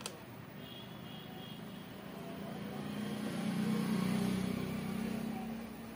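A motor vehicle's engine passing by, its low hum swelling about two seconds in, loudest near the middle, then fading away. A short sharp click at the very start.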